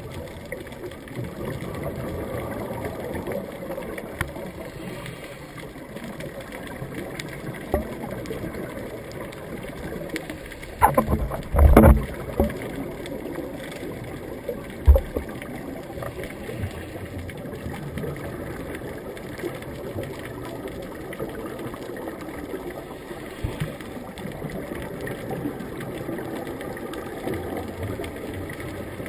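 Muffled underwater ambience heard through a sealed camera housing, with a louder rush of scuba regulator exhaust bubbles about eleven seconds in and a single sharp knock a few seconds later.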